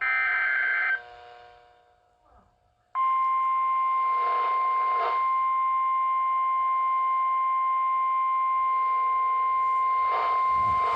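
NOAA weather radio sending an Emergency Alert System signal through its small speaker: a one-second burst of screeching SAME digital data tones, a short pause, then about three seconds in the steady 1050 Hz warning alarm tone starts and holds. The signal announces a new warning, here a severe thunderstorm warning.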